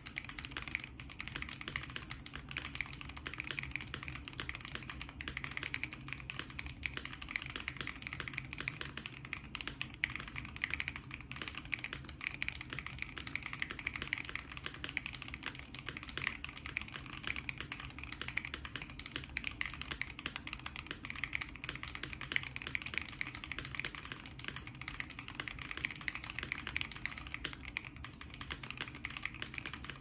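Fast, continuous typing on a Keychron Q2 mechanical keyboard with lubed Auralite switches and PBT keycaps on the stock plate, dense overlapping keystrokes. The board has its case foam removed, a three-layer tape mod, and lubed Durock V2 stabilizers.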